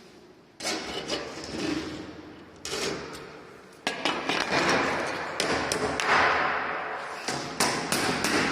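A series of sudden knocks or taps, each followed by a fading noisy rush; a few spaced out at first, then coming quickly one after another in the second half.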